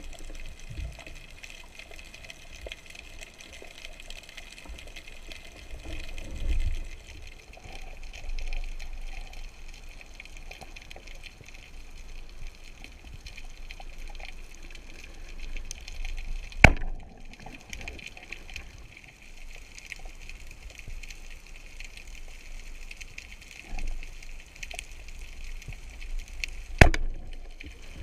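Underwater ambience: a steady crackling hiss of the sea with low swells of moving water, broken twice by a sharp crack, about ten seconds apart.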